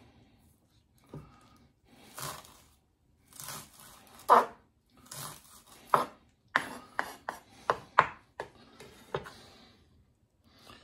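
Kitchen knife chopping chives on a wooden cutting board: irregular knife strikes on the board, with a quicker run of sharp chops from about six seconds in that stops after about nine seconds.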